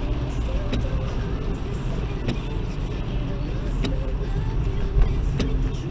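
Interior of a Toyota Aygo on the move in rain: a steady rumble of engine and tyres on a wet road, with a short click about every second and a half from the windscreen wipers sweeping.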